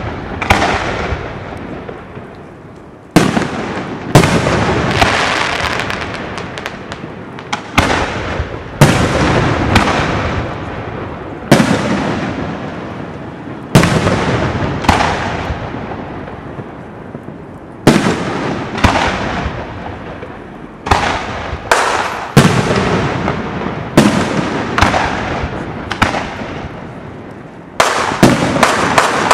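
Aerial firework shells bursting, a loud boom every second or two, each trailing off in a long rumble. A rapid flurry of bursts comes near the end.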